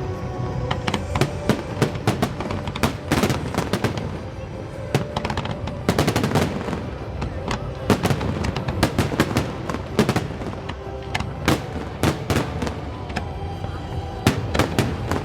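Fireworks display going off in rapid, irregular volleys of sharp cracks and bangs over a low rumble, with music playing underneath.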